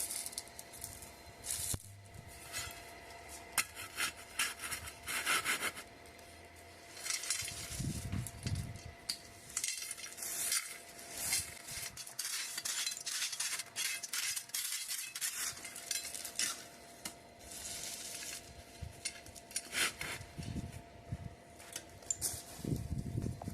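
A shovel scraping and clinking in gritty soil and stones in irregular strokes while a hole is dug for the wheel.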